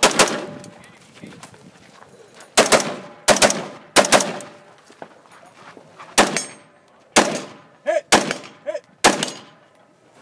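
Single shots from a BCM AR-15 carbine, about eight fired at an irregular pace a second or so apart, each sharp with a short echo trailing after it.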